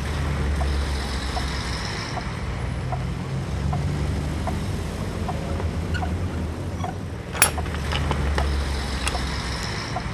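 Steady low rumble of motor vehicle traffic, with faint scattered clicks and one sharp knock about seven seconds in.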